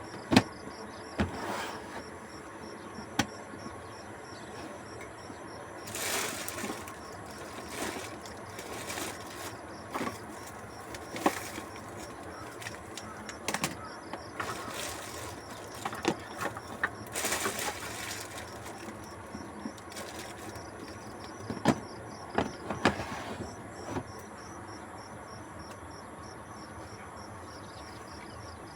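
Crickets chirping steadily in the background, with scattered clicks, knocks and rustles of objects being handled for the first twenty-odd seconds, then only the insects.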